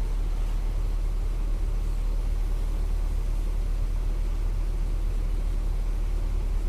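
Volksbus 17.230 EOD bus engine running steadily with an even, low rumble.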